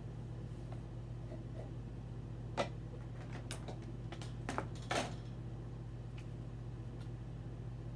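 A few light clicks and knocks of small objects being handled, one about two and a half seconds in and a cluster about four to five seconds in, over a steady low hum.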